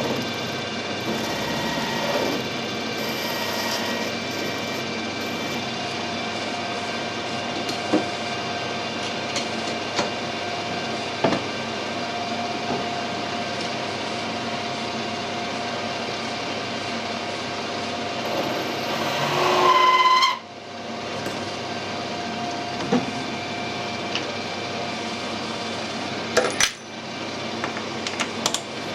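A workshop machine runs steadily with a few sharp metallic clicks. Around twenty seconds in, a louder, higher-pitched squeal builds and then cuts off suddenly.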